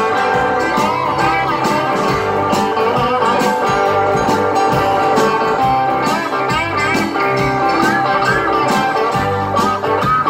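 Live electric band playing an instrumental passage of a blues-rock song: electric guitars, bass, drums and keyboard, with a lead guitar line of bent notes over a steady drum beat.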